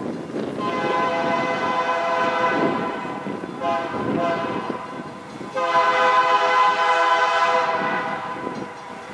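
Approaching diesel locomotive sounding its air horn in a chord: a long blast, a short one, then a louder long blast, the grade-crossing warning pattern, over the rumble of the oncoming train.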